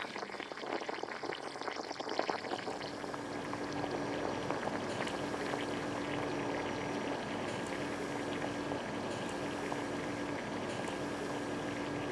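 Hot pot broth boiling in the pot, a steady bubbling that grows a little louder about three seconds in.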